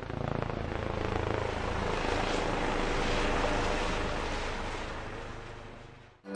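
Intro sound effect: a whooshing rush of noise over a low hum, swelling to a peak around the middle, then fading and cutting off just before the end.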